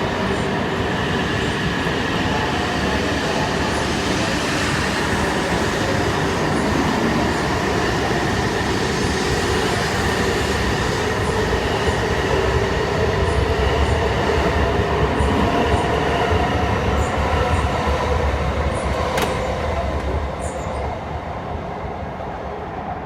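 Tohoku Shinkansen train running at the platform: a loud, even rumble with a steady electric motor whine over it. It swells past the middle and fades near the end.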